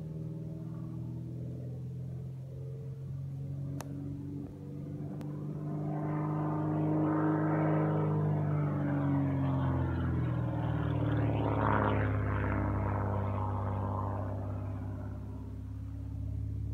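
Saab 91B Safir light aircraft's flat-six piston engine and propeller droning overhead during aerobatic manoeuvres. The engine note rises and falls in pitch with the changes in power and direction, and it grows louder from about six seconds in.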